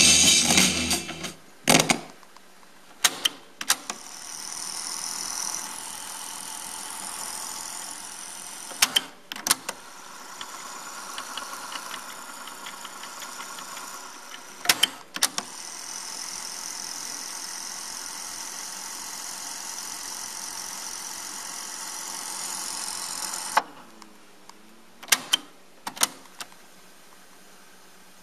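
Fisher CD-4020 cassette deck: music playback is cut off by a key clunk about two seconds in. Then the transport's piano-key buttons clunk repeatedly, and between them the tape winds at high speed with a steady whir in three runs. The whir stops suddenly near the end, followed by a few more key clicks.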